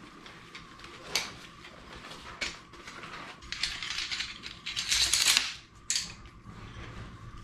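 Shock-corded aluminium poles of a folding camping chair frame clicking and clattering as the frame is pulled from its pouch and unfolded, with some rustling of the pouch fabric. Scattered single clicks, and a denser clatter about four to five and a half seconds in that is the loudest part.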